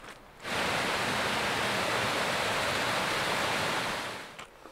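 Rushing water from a canyon creek, a steady, even rush that starts abruptly just under half a second in and fades out near the end.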